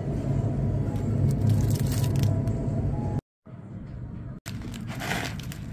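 Steady low hum of a convenience-store chilled display case. After a cut about three seconds in, there is a short crinkle of plastic packaging about five seconds in.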